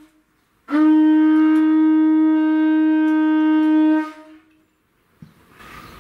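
A conch shell blown in one long, steady, loud note of about three seconds, its pitch rising slightly at the start before it holds and then breaks off.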